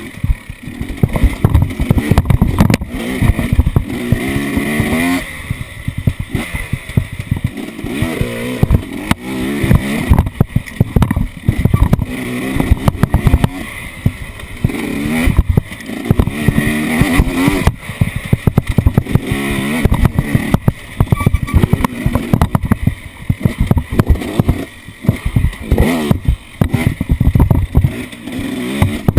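Off-road vehicle engine revving up and falling back again and again, with many sharp knocks and rattles throughout.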